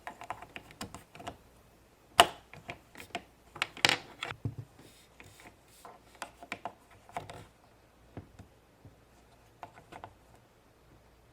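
Hard plastic Play-Doh toy pieces clicking and knocking against each other and the table as they are handled, in irregular taps. The loudest knocks come about two and four seconds in, and the clicks grow fewer and fainter after that.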